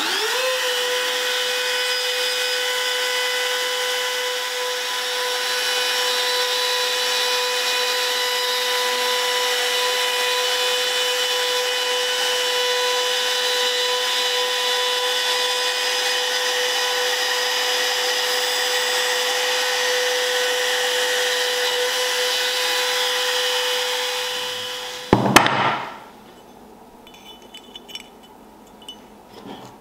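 Compact trim router spinning up and running steadily with a high, even whine for about 25 seconds, then cutting off with a few loud knocks. Faint small clinks of metal follow near the end.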